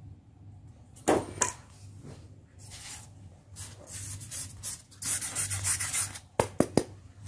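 Hands handling cut polystyrene foam pieces, the foam rubbing and scraping against fingers and the plastic sheet beneath in uneven stretches, with three short sharp clicks near the end.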